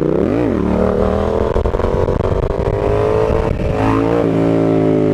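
Yamaha MT-07's parallel-twin engine running, with a quick rev that rises and falls about half a second in. It then settles into a steady, slowly shifting drone, with another short rise in revs near the four-second mark.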